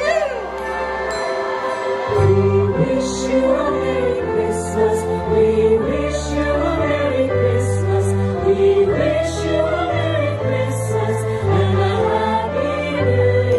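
Show music with voices singing a melody over an instrumental backing track. A strong bass line comes in about two seconds in.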